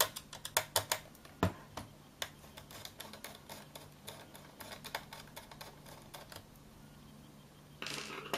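Small screwdriver clicking and scraping in the screws of a projector's sheet-metal shielding as they are loosened: a quick run of sharp clicks in the first couple of seconds, then sparser ticks. A brief rustle near the end.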